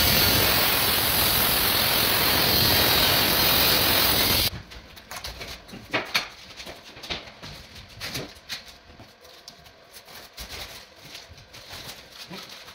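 Power tool running with a loud, even noise, cutting off abruptly about four and a half seconds in; after that, scattered light clicks and knocks.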